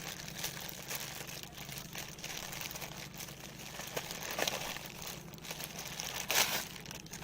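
Packaging rustling and crinkling as it is handled and opened, in irregular bursts with the loudest crinkle about six seconds in, over a steady low hum.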